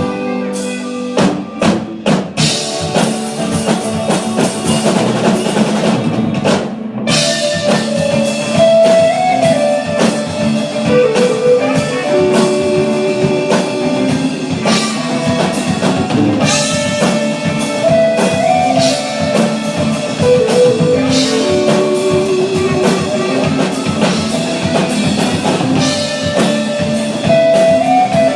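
Live rock band playing an instrumental passage, with drum kit, electric guitar and bass and a lead melody line that repeats roughly every nine seconds. The full band comes in about two seconds in.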